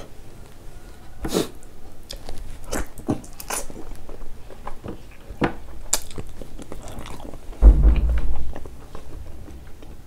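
Close-up eating sounds of a person chewing pork trotters and buckwheat dhido eaten by hand: irregular mouth smacks and clicks. A low thud about eight seconds in is the loudest sound.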